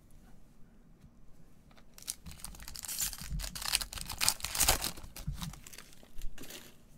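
Foil wrapper of a Panini Mosaic baseball card pack being torn open and crinkled by hand, starting about two seconds in and going on for a few seconds.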